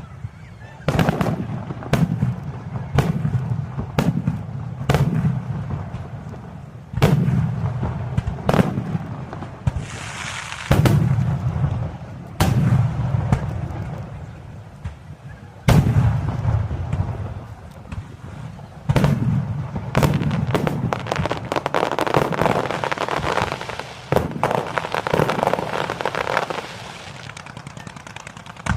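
Aerial firework shells bursting one after another, each sharp bang followed by a low rumbling echo, at first about one a second. Near the end the bangs give way to a dense stretch of crackling.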